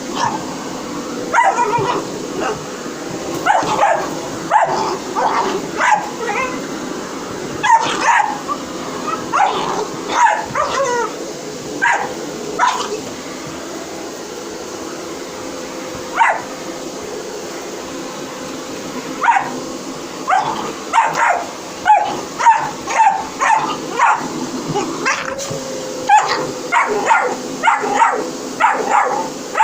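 A dog barking and yelping repeatedly at a running vacuum cleaner, whose steady hum continues underneath. The barks come in bunches, with a pause of several seconds in the middle.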